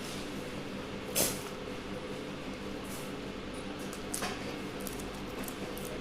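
A steady low hum with a few brief clicks on top. The sharpest click comes about a second in and a softer one about four seconds in.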